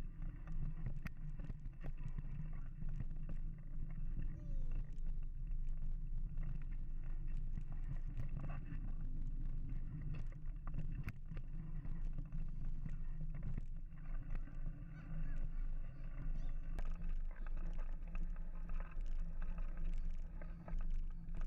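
Mountain bike riding along a dirt trail: a steady low rumble of tyres and motion, with frequent small clicks and rattles from the bike over bumps.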